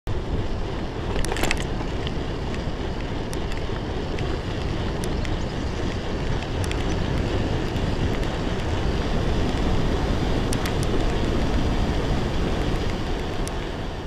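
Wind buffeting the microphone and tyre noise on tarmac from an e-bike ridden fast, a steady low rushing with a few short, sharp clicks at irregular moments.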